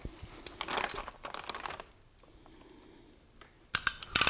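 Plastic sheeting crinkling and scattered light clicks as a deer carcass and its metal gambrel are handled. After a short quiet spell, a quick run of sharper clicks and knocks comes near the end.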